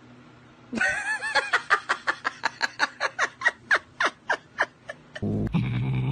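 A person laughing hard: a long run of quick breathy 'ha' pulses, about five a second, from about a second in until about five seconds in. Near the end a low, steady cat growl starts.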